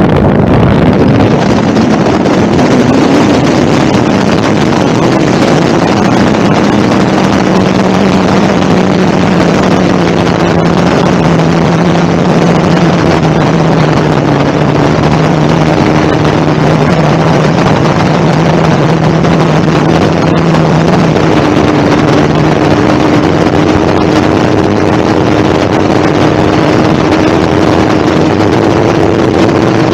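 Loud, steady rush of wind across the camera microphone of a wingsuit BASE jumper in flight, with low humming tones under it that drift slowly in pitch.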